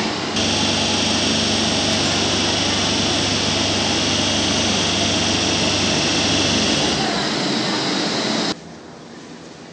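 Barcelona Metro 5000-series trains at an underground platform: a steady hum and hiss of train equipment while one train stands and another pulls in slowly. The noise drops suddenly to a much quieter background near the end.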